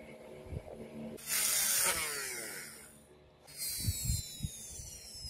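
Handheld rotary tool grinding a wooden knife handle in two bursts of about two seconds each, its whine falling in pitch as the motor slows under load. A few low knocks of handling come about four seconds in.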